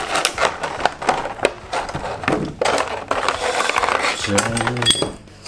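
Clear plastic blister packaging crackling and rustling in irregular clicks as metal model parts are pulled out of it by hand.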